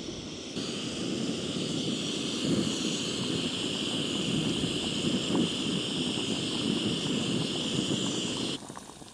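Camping stove burner running with a steady rushing hiss and low rumble as it heats water for coffee. It stops suddenly near the end.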